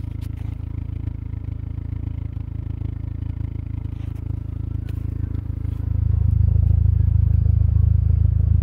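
1997 Mitsubishi four-cylinder engine idling steadily through a newly installed Cherry Bomb Turbo muffler, its exhaust note a steady low drone. The note grows louder about six seconds in and holds there.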